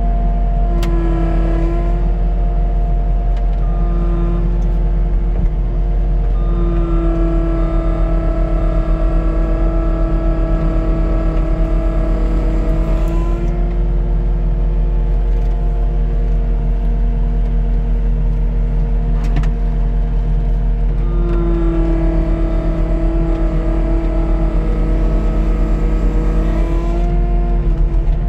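Cat 289D compact track loader's four-cylinder turbo diesel running steadily at high throttle, heard from inside the cab as the machine drags a cherry log on a chain. A steady whine from the tracks' hydraulic drive comes and goes in several long stretches as it pulls.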